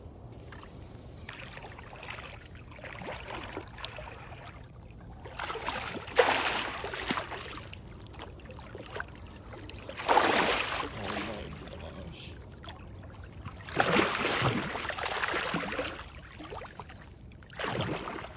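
A hooked sturgeon thrashing in the shallows at the bank, splashing water in four loud bursts a few seconds apart, with the sharpest splash about six seconds in.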